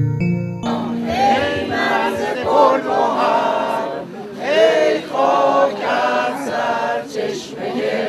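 A group of people singing together without accompaniment, several voices at once. A keyboard music track cuts off about half a second in, just before the singing starts.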